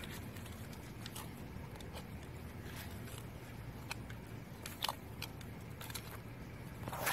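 Blade of a long-handled digging tool scraping and chopping into trench soil, heard as a few faint, scattered crunches.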